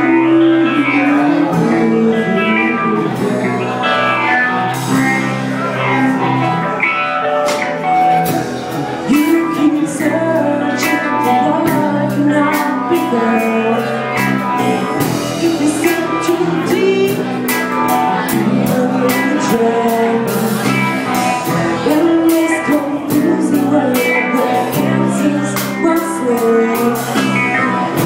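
Live band playing a song: electric guitar and bass guitar over a drum kit, with regular cymbal and drum hits.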